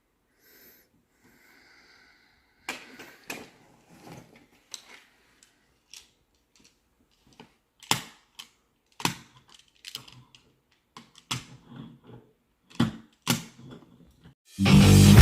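Plastic magnetic building tiles clacking against each other in irregular sharp knocks as they are picked up. Loud guitar music starts near the end.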